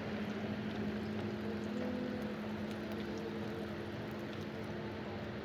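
Hot oil sizzling with faint crackles as pieces of tempe deep-fry in a pan, over a steady low hum.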